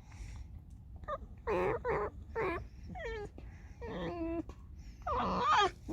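Red fox whining and squeaking in a run of short, high-pitched complaining calls, several sliding down in pitch, the last near the end the loudest.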